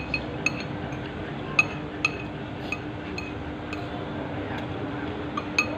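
Metal spoon and fork clinking against a ceramic bowl while eating: about ten light, ringing taps at irregular intervals, over a faint steady low hum.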